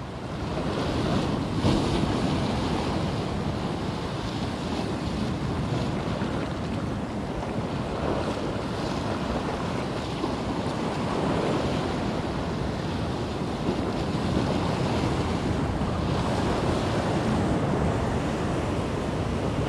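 Sea surf washing and breaking steadily against the shore, with wind buffeting the microphone.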